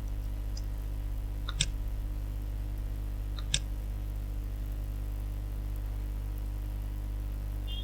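Steady low electrical hum on the recording, with two short computer-mouse clicks about two seconds apart.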